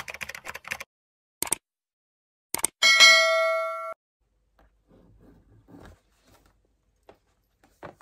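Clicks and rustling from packaging being handled, then a single loud bell-like ding about three seconds in, ringing for about a second before it cuts off suddenly. Faint rustling follows.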